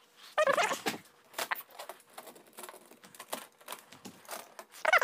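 A short, high-pitched wavering whine about half a second in and again at the very end, between scattered light taps and rustles.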